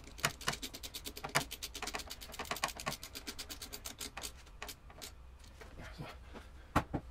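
Quick, irregular clicking and small knocks from a hand tool and fittings being worked in a car engine bay, densest in the first half, with two sharper knocks near the end.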